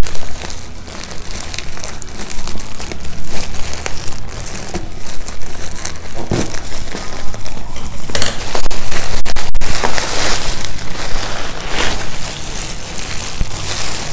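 Thick black plastic parcel wrapping crinkling and crackling as it is handled and pulled open by hand. The rustling is loudest about eight to ten seconds in.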